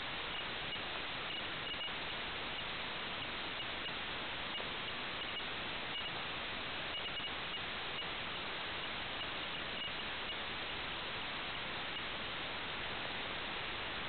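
Steady static hiss from a recorded analog video feed, even in level throughout, with faint tiny ticks now and then over most of it.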